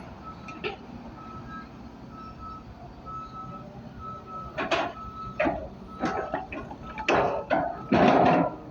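Heavy machine's backup alarm beeping steadily, a little under twice a second, over a low engine hum. Several loud clanks or knocks break in over the second half, the loudest near the end.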